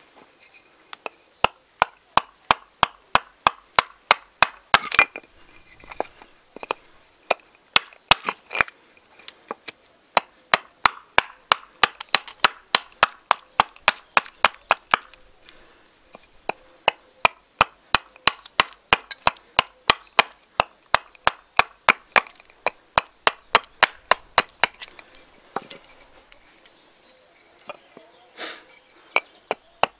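Rapid, regular strikes of a small axe chopping into a piece of seasoned alder, about three blows a second in runs with short pauses, roughing out a spoon blank. The dry, seasoned wood is very hard, "like concrete".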